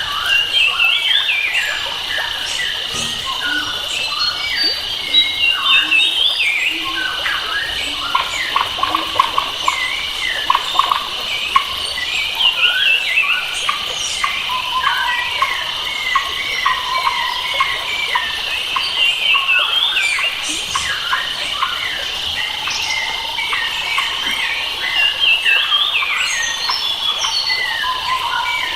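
Several wild forest birds calling and singing at once: many short chirps and whistled glides overlapping, over a steady high-pitched insect drone.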